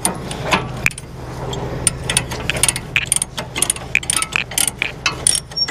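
Cat 320 excavator's steel tracks clicking and clanking as it drives, several knocks a second from about two seconds in, over the steady low drone of its diesel engine.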